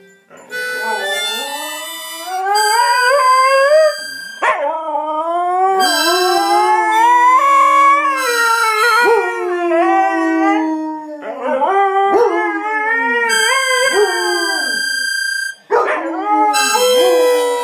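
Two Siberian huskies howling along to a harmonica: long, wavering howls that slide up and down in pitch and overlap, with the harmonica's steady held notes sounding between and under them.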